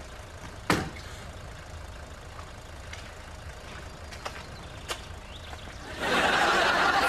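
A car engine idling with a low steady rumble, with one sharp thump about a second in and a couple of faint knocks later. Near the end, a loud wash of audience laughter comes in.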